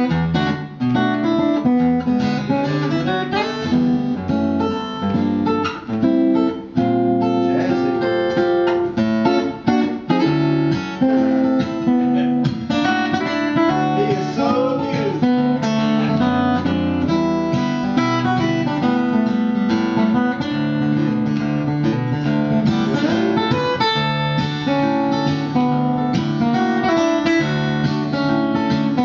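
Solo acoustic guitar played live, fingerpicked: a melody over moving bass notes, played continuously.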